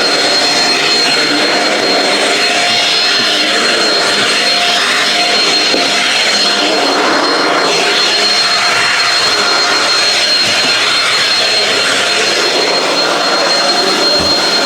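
Shark Rocket stick vacuum with DuoClean running steadily while vacuuming, a high steady motor whine over the rush of suction and brushroll.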